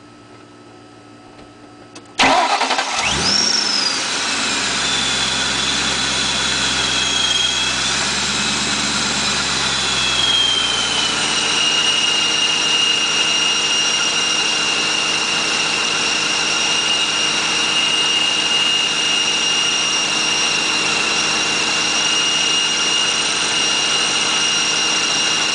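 Supercharged 4.6-litre V8 of a 2001 Roush Mustang GT, with a Paxton Novi 1000 supercharger, starting about two seconds in, catching at once, then running at a fast idle that settles to a steady idle. A high-pitched supercharger whine rides over the engine: it jumps up at the start, glides down as the idle settles, then holds one steady pitch.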